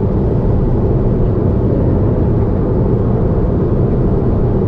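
Heavy tyre road noise inside a Honda S660's cabin at highway speed: a loud, steady low rumble.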